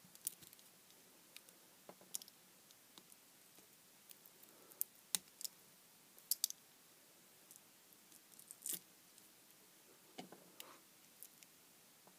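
Small screwdriver picking and scraping the rubbery silicone gel potting off a miniature LED lamp's circuit boards: faint, irregular clicks and short scrapes.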